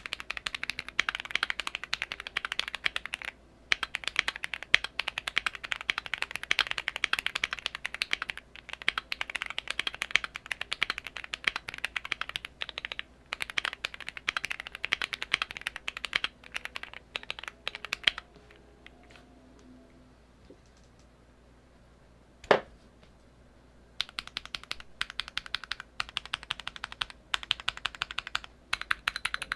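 Fast typing on a modded Keychron Q1 custom mechanical keyboard with linear switches (Gateron Pro Milky Yellows), a dense run of keystrokes. The typing stops for several seconds about two thirds of the way through, with one loud single knock in the pause, then resumes.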